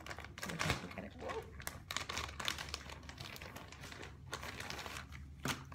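Plastic bag crinkling and rustling as it is opened and handled, in irregular crackles.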